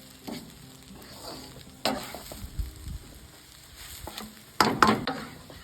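Food sizzling in a pan while being stirred, with a utensil scraping and knocking against the pan a few times, loudest near the end.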